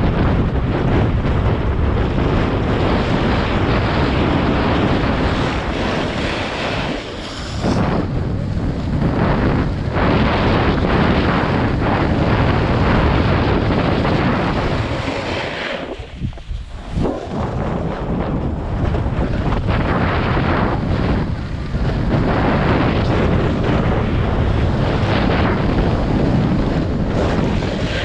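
Wind buffeting the microphone during a fast descent on a groomed ski slope, mixed with the hiss and scrape of the board or skis sliding over packed snow. The noise is loud and steady, easing briefly about seven seconds in and dropping away for a moment about sixteen seconds in.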